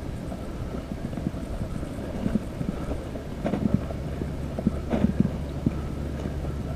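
Low wind rumble on the microphone, with scattered soft knocks, most of them in the second half.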